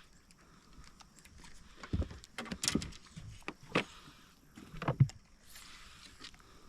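A handful of separate knocks and thumps, four or five spread over a few seconds, with a short hiss about halfway through.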